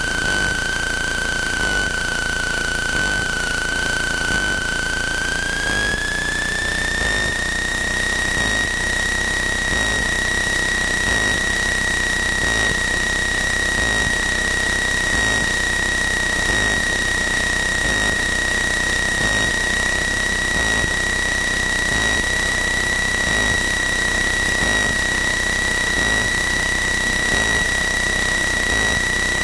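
Cessna 162 Skycatcher's Continental O-200 four-cylinder engine and propeller heard inside the cabin, a steady drone with a high whine. A few seconds in, the whine rises smoothly in pitch and then holds steady, as engine speed comes up.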